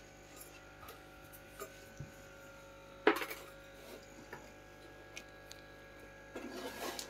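Scattered light clicks and taps of materials being handled, with one sharper knock about three seconds in and a brief rustle near the end, over a faint steady hum.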